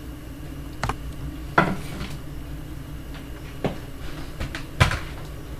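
A handful of light knocks and clicks from the snails' container being handled, the two loudest about a second and a half in and near the end, over a steady low hum.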